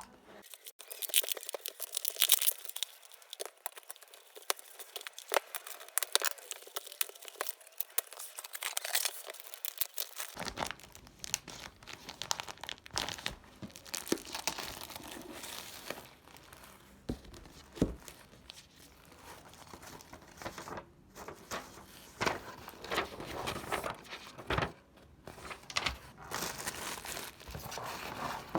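Packaging crinkling and rustling in irregular crackles, with tearing sounds, as it is handled and opened close to the microphone.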